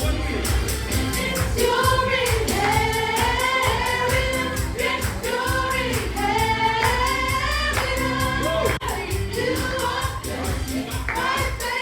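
A choir singing a gospel worship song over band accompaniment with a steady percussion beat.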